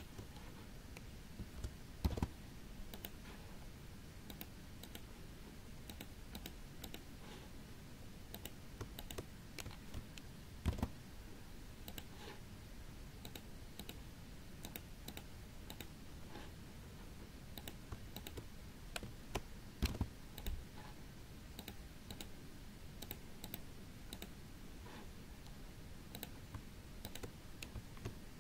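Computer keyboard keys and mouse buttons clicking at an irregular pace, with a few louder clicks about two, eleven and twenty seconds in.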